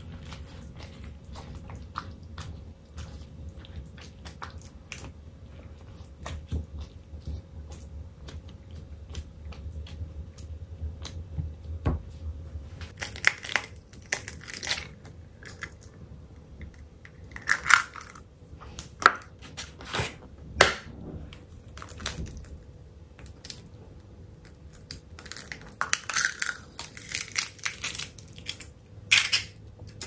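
A spatula stirring spinach into tomato sauce in a skillet, with small scraping clicks. From about halfway on, eggs are cracked and dropped into the sauce, with clusters of sharp shell-cracking snaps.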